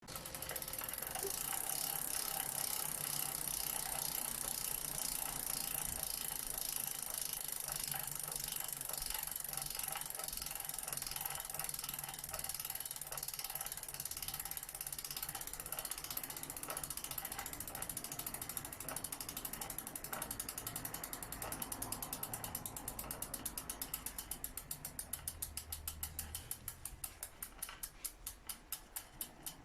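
Bicycle freehub ratcheting: a fast buzz of pawl clicks that slows over the last several seconds into separate clicks as the wheel spins down. The owner considers this an abnormal freehub noise.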